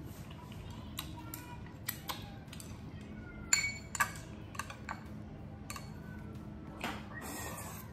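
Plastic chopsticks tapping and clinking against a small glass bowl and a ceramic serving dish: scattered light clicks, one ringing clink about three and a half seconds in.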